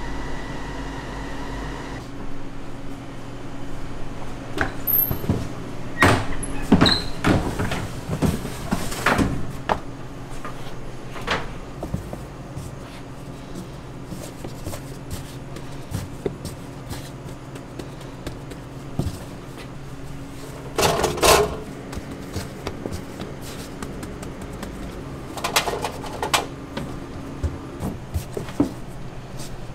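Dough being worked by hand on a floured stainless-steel worktable, with irregular knocks and thuds, the loudest about two-thirds of the way through, over a steady low hum of kitchen machinery.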